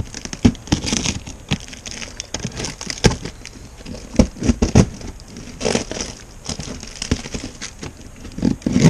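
Parcel packaging being torn open and crumpled by hand as a boxed gearbox is unwrapped: irregular crackling, rustling and sharp crinkles with a few louder snaps.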